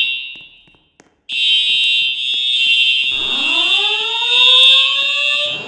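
Simplex fire alarms sounding: a steady high-pitched alarm tone starts about a second in. About three seconds in, a second, lower tone joins it, sweeping upward and levelling off, and both cut off just before the end.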